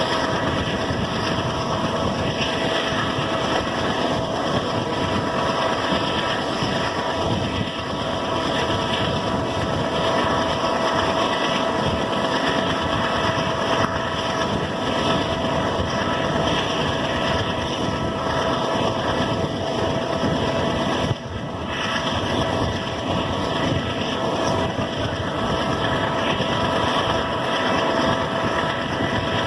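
WDG-3A Alco diesel locomotive's 16-cylinder engine running under load, its turbocharger giving a steady high whistle over the engine noise, with a brief dip about two-thirds of the way through.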